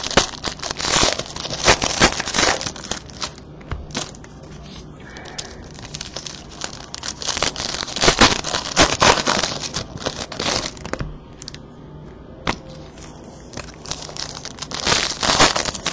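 Foil wrapper of a 2015 Certified football card pack being crinkled and torn open by hand, in bursts of crackling rustle with quieter stretches between.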